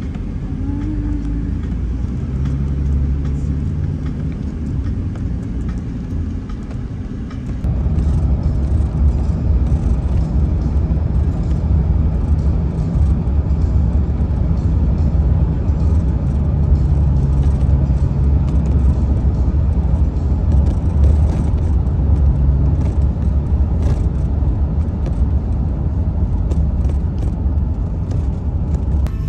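Road noise heard from inside a moving car: a steady low rumble of engine and tyres. About a quarter of the way in it turns suddenly louder and rougher and stays so.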